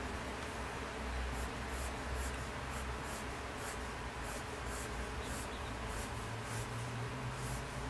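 Colored pencil scratching on sketchbook paper in short, light strokes, about two to three a second, starting about a second and a half in.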